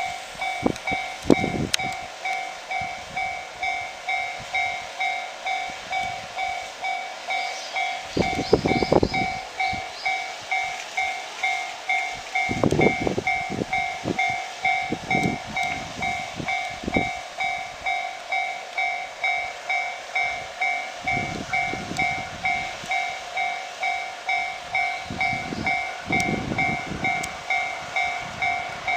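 Japanese railway level-crossing warning bell ringing steadily, its electronic clang repeating about twice a second. Low rumbles come and go beneath it several times.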